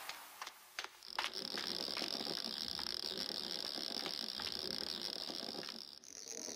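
Wooden pull-toy horse on wheels rolling, a fast ratcheting clatter with a steady high whir. A few clicks come first, and the clatter stops shortly before the end.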